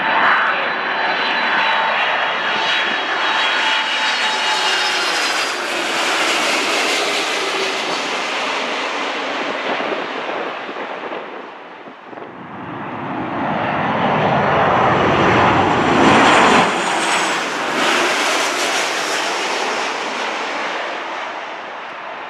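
Twin-engine jet airliners passing low overhead on final approach, gear down. First an Air Transat Airbus A310, its turbofans running with a steady whine that fades away. Then, after a break about halfway through, a Sunwing Boeing 737-800 whose engine noise swells to its loudest and fades as it passes.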